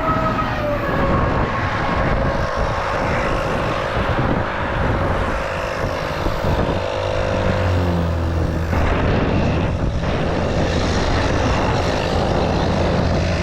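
Steady highway traffic noise from vehicles passing close by, with a falling whine from one vehicle going past near the start.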